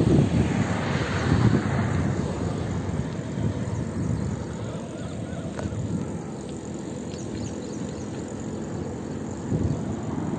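Wind rushing over a phone's microphone on a moving bicycle: a low, gusty noise that is strongest in the first couple of seconds, eases in the middle and swells again near the end.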